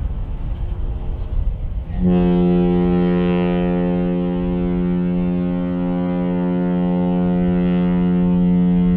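A ship's horn sounding one long, steady blast, starting about two seconds in over a low rumble and holding at one pitch.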